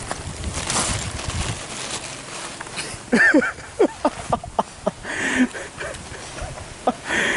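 A quick run of short animal calls about three seconds in, each chirp sliding up and down in pitch, followed by a couple of single calls.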